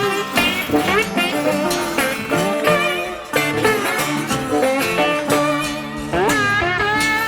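Background blues-rock music: an instrumental guitar passage with a slide-guitar-like lead over a steady bass line.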